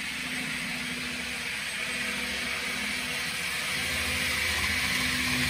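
N gauge model HST train running along the layout: a steady motor whir and a hiss from the wheels on the track, growing slowly louder.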